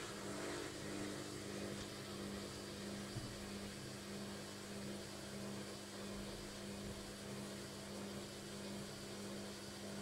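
Logik washing machine in its intermediate spin, the motor running with a steady, even hum.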